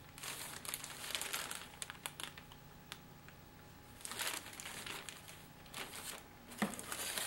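Clear plastic bags holding model-kit parts trees crinkling and rustling as they are handled. There is a burst of about two seconds at the start, then shorter bursts around the middle and near the end.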